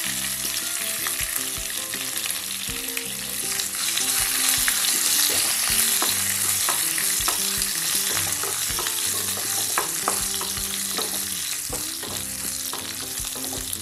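Tempering frying in hot oil in a non-stick kadai: curry leaves, dried red chillies and coriander leaves sizzling with mustard seeds, urad dal and cumin, stirred with a wooden spatula that scrapes and taps the pan. The sizzle grows louder about four seconds in.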